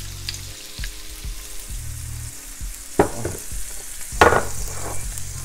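Shrimp searing in oil in a skillet: a steady sizzle over a low hum. Two sharp knocks, about a second apart, come as a glass bowl and a bottle are handled on the counter; the second is louder.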